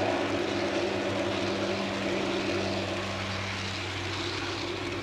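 Garden-scale model freight cars rolling past on the track: a steady whirring rumble with a low hum, slowly fading as the end of the train goes by.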